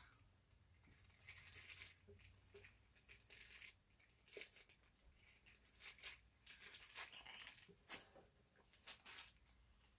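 Faint, scattered rustling and crinkling of small packaging being handled, with light clicks here and there.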